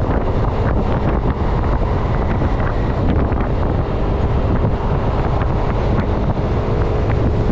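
Wind rushing over the microphone of a motorcycle riding at speed, with the bike's engine and road noise running steadily underneath.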